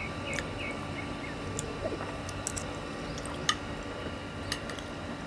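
A person chewing food close to the microphone, with soft wet squishing and scattered small sharp clicks.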